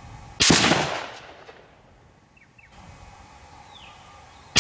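Howa 1500 Mini Action .223 Remington rifle firing a single shot about half a second in: a sharp crack that dies away over about a second. The next shot cracks at the very end.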